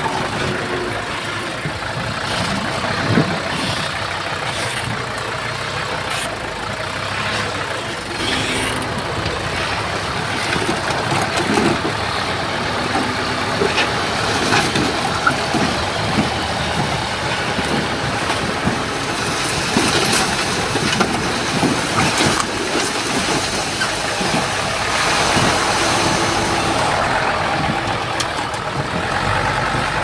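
Diesel engine of heavy earthmoving machinery running steadily, with frequent short clanks and knocks over it.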